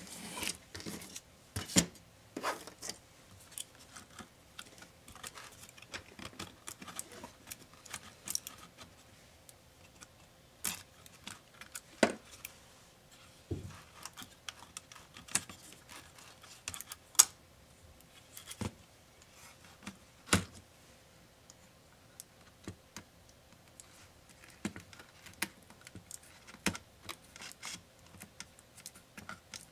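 Irregular clicks, taps and knocks of small plastic and metal laptop parts being handled during disassembly, with a few louder clacks.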